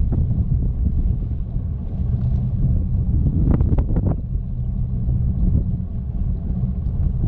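Fishing boat's engine running with a steady low rumble, with wind buffeting the microphone.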